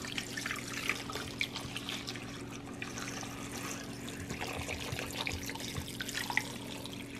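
Water being poured steadily into an electric pressure cooker's inner pot, with a steady low hum underneath.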